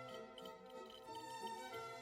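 Soft background music with sustained string-like notes and a light ticking pulse.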